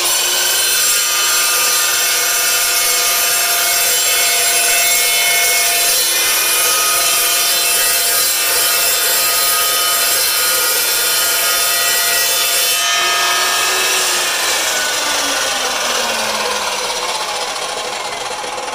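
Evolution EVOSAW380 dry-cut metal chop saw, a 15-inch toothed blade driven through a gearbox, cutting through 3/16-inch steel angle with a loud, steady cutting noise laced with ringing tones. About thirteen seconds in, the cut ends and the motor and blade wind down with a falling whine that fades.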